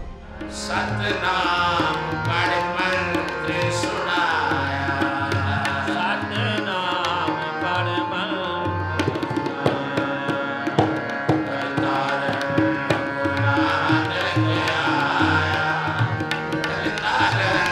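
Music with tabla keeping a steady rhythm under long held notes, with a voice singing in places.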